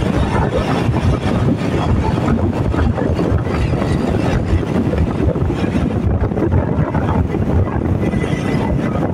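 Wind buffeting the microphone of a moving bike: a loud, steady, fluttering rush, heaviest in the low range.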